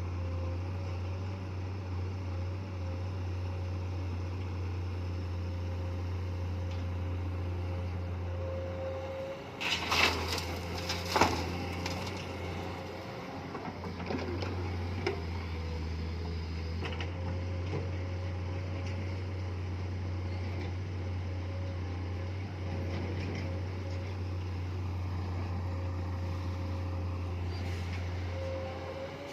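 Komatsu PC210 excavator's diesel engine running steadily, with two loud crashes about ten and eleven seconds in.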